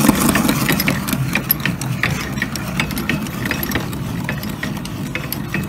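Hand-cranked blacksmith's post drill boring a 2.5-inch hole in rough-sawn lumber: the gear train and bit turning steadily in the wood, a continuous low grinding churn with many small irregular ticks.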